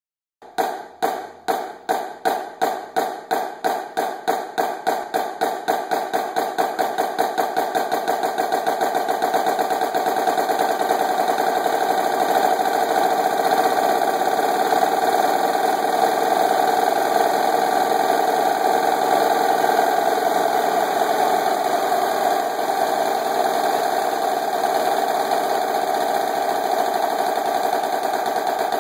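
Marching snare drum played with sticks: single strokes about two a second, accelerating steadily until they blur into a sustained roll after about ten seconds, which holds to the end.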